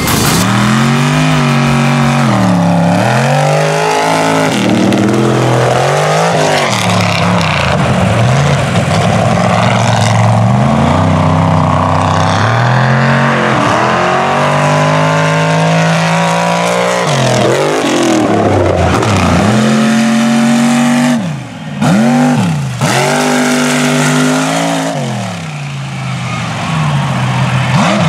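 Mega truck engines at full race pace, revving hard and falling off again and again as the trucks accelerate and lift, with a brief drop in loudness about three quarters of the way through.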